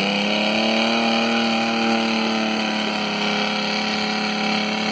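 Off-road vehicle's engine held at high, nearly steady revs after a hard rev-up, the pitch easing up slightly in the first second.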